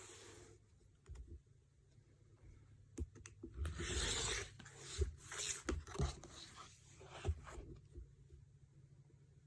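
Quilting fabric and tools being handled: light taps and clicks with a few rustling, scraping passages, the longest lasting about a second around four seconds in.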